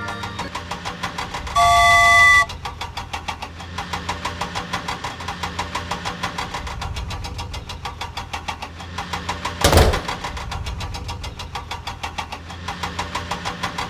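Cartoon toy-vehicle engine sound effect running steadily with a rapid, even chugging beat. A loud horn-like honk sounds about two seconds in, and a loud thump comes near ten seconds.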